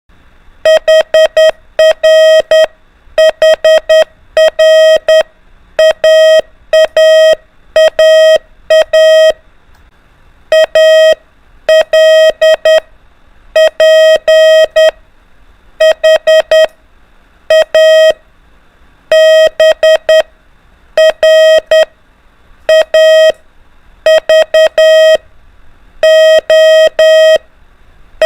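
Morse code (CW) practice tone: one steady beep keyed on and off in dots and dashes, sending letters of the alphabet one after another in short groups with pauses between them.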